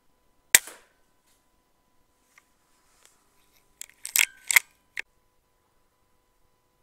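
A single sharp report from a 12 ft-lb .22 HW100KT PCP air rifle firing, about half a second in. About three seconds later comes a quick run of metallic clicks and clacks as the rifle's sidelever is worked to load the next pellet.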